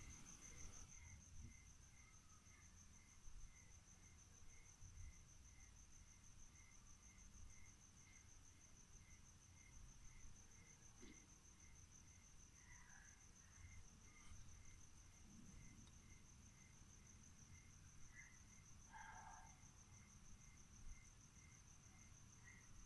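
Faint crickets chirping at night: a continuous high trill together with a slower, evenly spaced chirp about twice a second. A few short, faint calls from some other animal are heard now and then.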